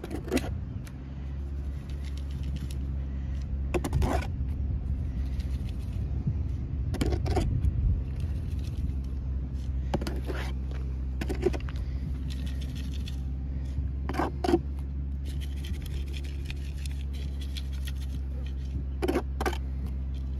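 Scraping and sharp knocks of digging into stony ground after a metal-detector target, a strike every few seconds, over a steady low hum.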